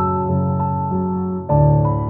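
Background music: soft piano notes over a steady bass line, with a new chord entering near the end.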